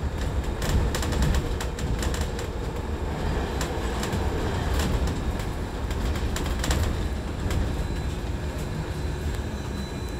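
Upper-deck interior of a Wright Electroliner battery-electric double-decker bus on the move: a steady low rumble from the road and running gear, with frequent small rattles and clicks from the body and fittings.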